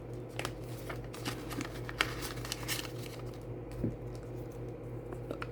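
Soft rustling and light clicks of paper money and cards being handled, with a steady low hum underneath.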